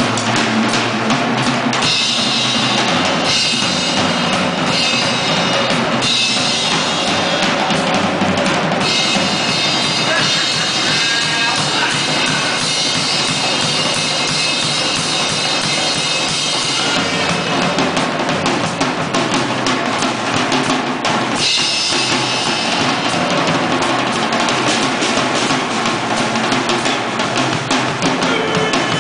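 Acoustic drum kit played solo: dense, rapid strokes on snare, toms and bass drum, with stretches of ringing cymbal wash over them.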